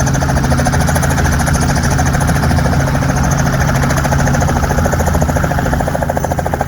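Helicopter lifting off close by: the rapid, even chop of its rotor blades over a steady engine drone, loud throughout.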